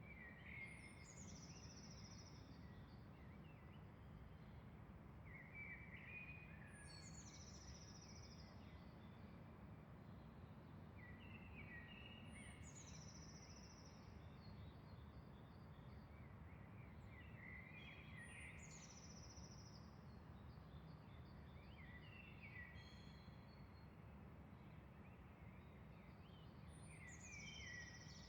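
A songbird repeating the same short song phrase, a high falling sweep with lower notes beneath, about every five to six seconds, six times in all. The song is faint over a steady low background rumble.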